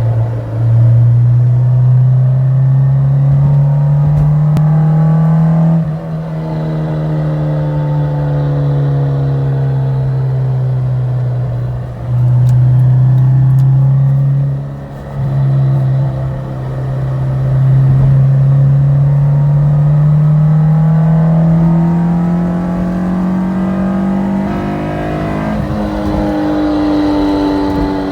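Honda S2000 under way, its engine and drivetrain giving a strong pitched drone that climbs slowly with speed and drops back several times, as at gear changes. The owner takes the noise for the sound of a bad transmission.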